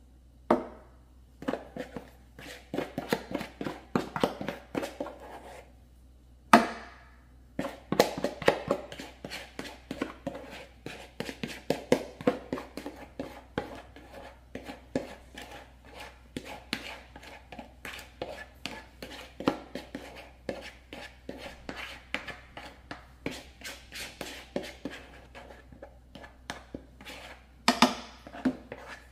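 A spoon knocking and scraping against a mixing bowl in quick, uneven taps while cornbread batter is mixed and spooned out, with one sharper knock about six and a half seconds in.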